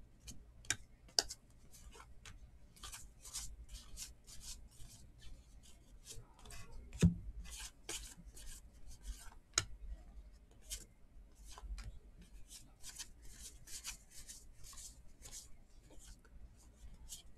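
Baseball trading cards being flipped through by hand, each card sliding off the stack with a short papery swish, about two a second. One louder thump about seven seconds in.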